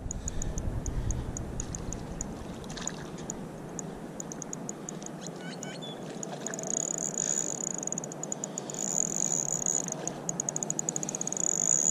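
Spinning reel ticking as a small hooked trout is reeled in: at first a few ticks a second, then running together into a fast, high whir in stretches, about halfway through and again near the end.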